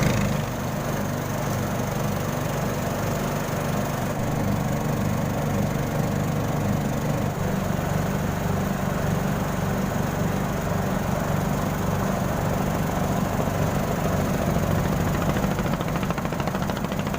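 Engine of a klotok, a small wooden motorboat, running steadily while underway.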